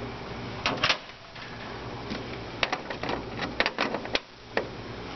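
Metal cable connectors being unplugged from a stepper-motor control box panel: a run of sharp clicks and rattles as the plugs come loose and the cables are handled, over a low steady hum.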